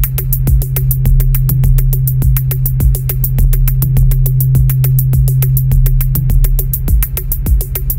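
Electronic drone music: a steady low hum under a fast, even ticking pulse with soft low beats.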